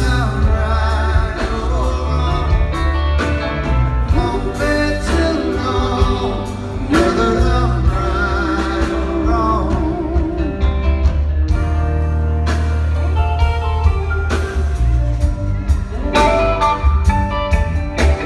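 Live rock band playing electric guitars, bass, drums and keyboards, with a male lead vocal over it. About halfway through, the singer holds a long note with a wavering vibrato.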